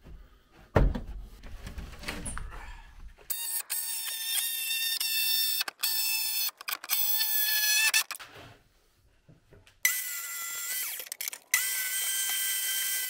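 Wooden boards knocking and shifting, then a cordless drill running in several bursts of steady high-pitched motor whine with short stops in between, driving screws into OSB board.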